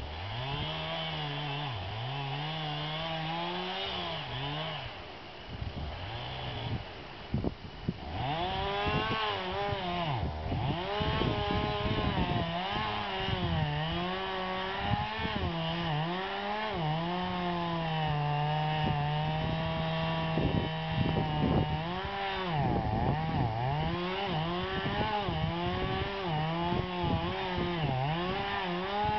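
Stihl MS361 two-stroke chainsaw with a 30-inch bar cutting into a large pine trunk. Its engine note rises and dips as the chain loads up in the cut, drops lower about five to seven seconds in, then runs high again.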